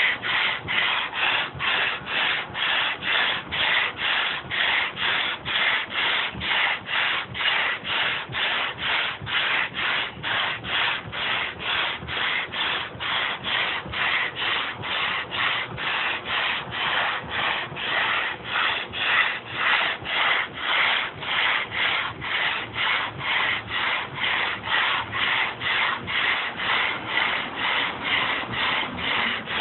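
Sandpaper on a hand sanding block rubbed back and forth over a wooden butcher-block tabletop, about two strokes a second. It is stripping the old finish and stain down to bare wood.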